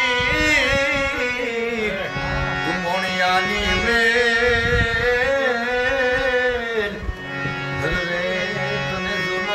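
Harmonium playing with a man's voice singing long, wavering held notes of a devotional Charani chant.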